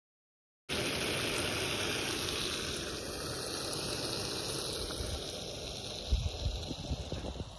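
Wind blowing across an open lakeside, a steady rushing noise that cuts in abruptly about a second in, with deep buffeting thumps on the microphone near the end.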